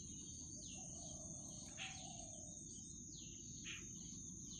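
Faint insect-and-bird ambience. A steady high-pitched insect drone runs throughout, with short falling bird chirps repeated every second or so.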